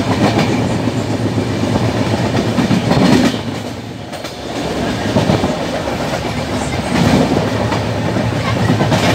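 North East Superfast Express passenger train running, heard from inside a coach at an open window: a steady rumble of wheels on rails, with the wheels clacking sharply a few times.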